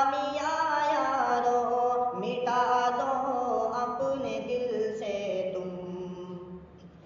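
Male voice singing long, drawn-out wordless notes of an Urdu farewell tarana, the pitch gliding from note to note, dying away near the end.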